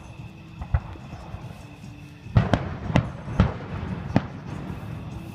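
Fireworks going off at a distance: a single bang under a second in, then a quick run of about six sharp bangs over the next two seconds.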